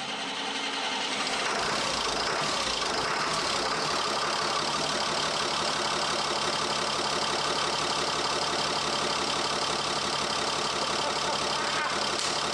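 Caterpillar 3126 inline-six turbo diesel running at a steady idle, freshly started for the first time after the swap; the sound builds over about the first two seconds and then holds even.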